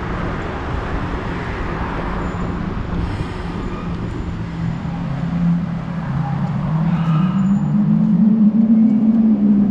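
Road traffic heard from a moving bicycle, with wind rushing over the microphone. A motor vehicle's engine close by grows louder over the last few seconds, its pitch rising slightly.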